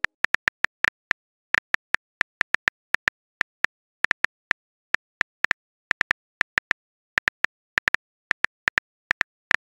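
Phone keyboard key-click sounds, one sharp tick for each letter as a text message is typed out, several a second in uneven runs with short pauses.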